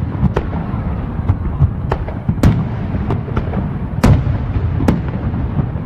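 Fireworks going off: a continuous low rumble of bangs with about a dozen sharp cracks at irregular intervals. The loudest cracks come about two and a half and four seconds in.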